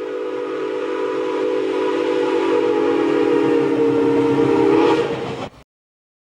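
Northern Pacific no. 328 steam locomotive's Milwaukee Road six-chime steam whistle blowing one long chord of several tones, growing slightly louder, then cutting off suddenly about five and a half seconds in.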